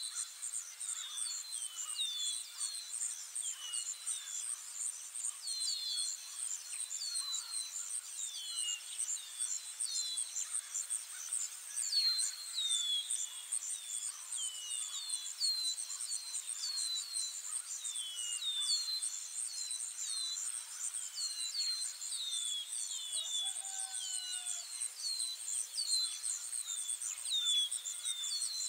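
Outdoor nature ambience: a steady, high, pulsing insect trill like crickets, with small birds giving short falling chirps over and over, often two or three in quick succession.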